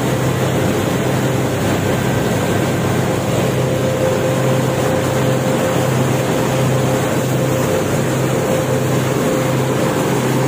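A ferry's engine running with a steady low hum under the constant rush of water churned up along the hull.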